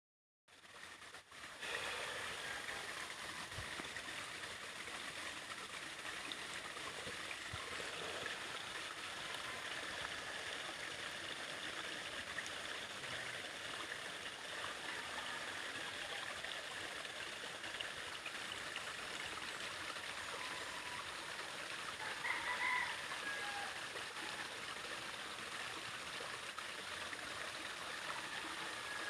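Babbling brook: water flowing and trickling with a steady rush, fading in over the first two seconds. A brief chirp-like sound rises above it about two-thirds of the way through.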